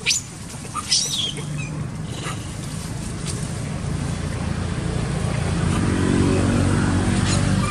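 A motor vehicle's engine approaching, a low steady hum that grows louder through the second half. Two short, sharp, high squeaks about a second apart near the start.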